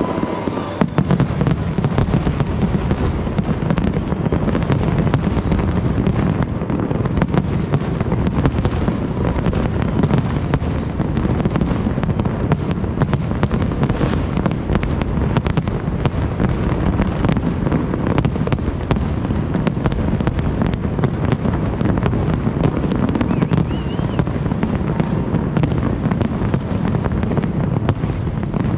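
Aerial firework shells bursting in a massed display: a dense, unbroken barrage of overlapping booms and crackles with a steady heavy rumble beneath.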